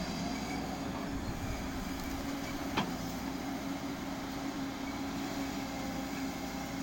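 JCB backhoe loader's diesel engine running steadily, with a single sharp knock a little under three seconds in.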